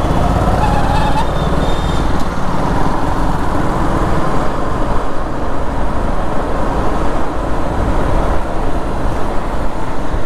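Road noise from a motorbike riding through city traffic: the engine and passing vehicles under heavy wind buffeting on the microphone, with a short rising tone about a second in.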